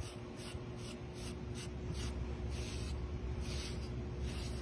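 A grooming brush raking through a husky's thick coat in quick, repeated strokes, about two to three a second, working out loose shedding undercoat.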